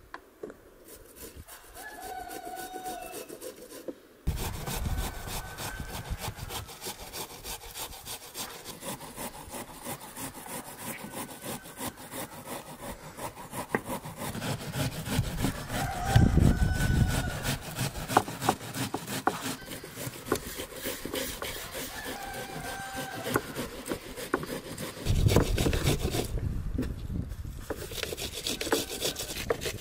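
Continuous rapid scraping and rasping from food being worked by hand at a wooden table, louder about halfway through and again near the end.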